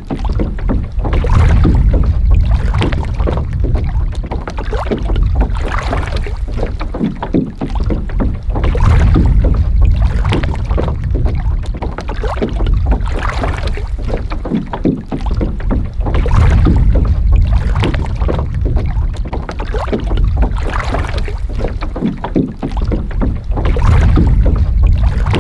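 Small waves lapping and splashing against a beached canoe's hull and the rocks beneath it. Gusts of wind buffet the microphone in a low rumble that swells every few seconds.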